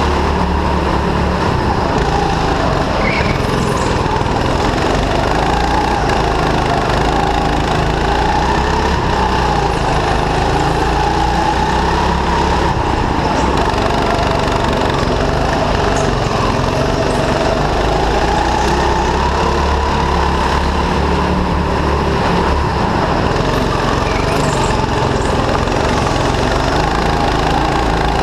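Go-kart's small petrol engine running hard, its pitch rising and falling as the kart slows for corners and accelerates out of them.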